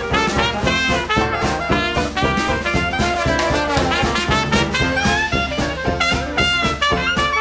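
Background music: an upbeat jazz or swing track led by brass instruments, playing continuously with a steady beat.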